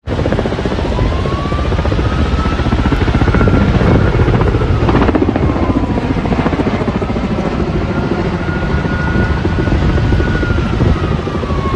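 Helicopter running loud, its rotor chopping rapidly, with a whine that rises and falls twice.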